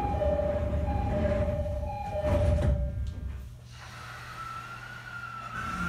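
Railway level-crossing alarm ringing in two alternating pitches, heard over the low running rumble of a 209-series electric train as it passes. The crossing sound fades after about three seconds, leaving the train's running noise with a thin whine that rises and falls gently.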